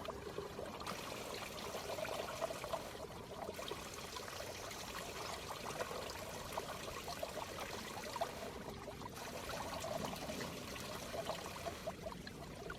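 Spring water dripping and trickling off rocks, a steady patter of small drips.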